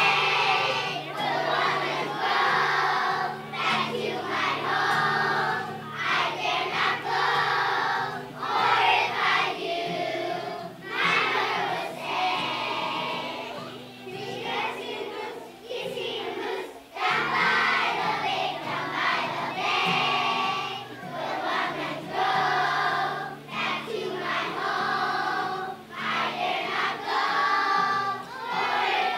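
A large group of young children singing a song together in chorus, phrase after phrase, over steady low accompanying notes.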